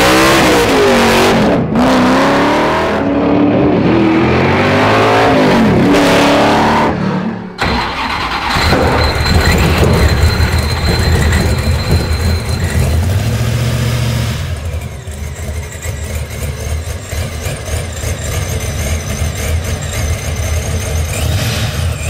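A first-generation Camaro's engine revs up and down hard during a smoky burnout. After a sudden cut about seven seconds in, a 1970 Dodge Challenger's engine takes over, running with a low, steady rumble at idle.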